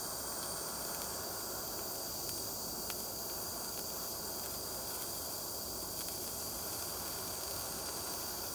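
Gas soldering torch flame hissing steadily while it heats an orthodontic band so the solder will flow.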